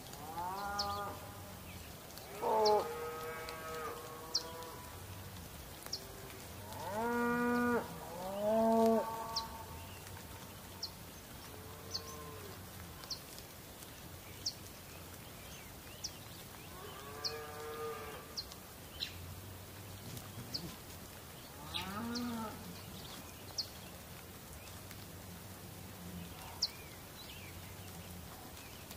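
About half a dozen drawn-out animal calls, each a second or two long, rising and falling in pitch, over a steady background hiss. Short high chirps come about once a second throughout.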